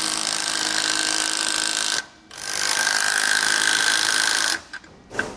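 Cordless power tool spinning a socket to run down and snug the nut on a sway bar mounting bolt. It runs with a steady motor whine, stops briefly about two seconds in, then runs again for about two more seconds before stopping.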